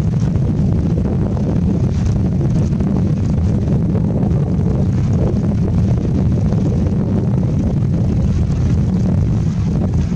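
Strong wind buffeting the microphone: a loud, steady low rumble with a fainter hiss above it.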